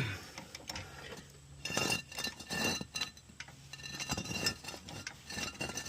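Metal clanks and clinks of an old hydraulic floor jack being worked under a car, several separate strikes about a second apart, each with a slight metallic ring.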